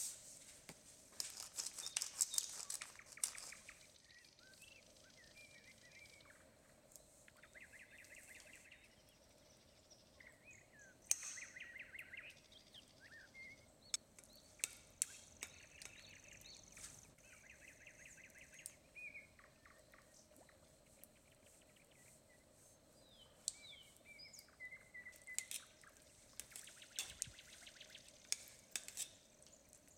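Faint birdsong of repeated chirps and quick trills, over the clinks and scrapes of a metal spoon against a stainless steel salad ring as the salad layers are spooned in and pressed down. The sharpest clinks come around the middle.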